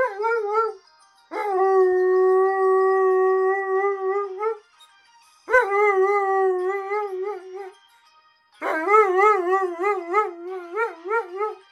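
Wolf-hybrid dog howling, set off by a mobile phone's ringtone. Four howls: a short one at the start, a long steady one of about three seconds, then two wavering ones.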